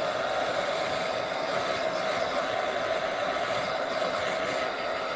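Handheld hot-air heat tool running steadily, a fan whir with one steady hum, blowing on freshly painted wood to dry the paint.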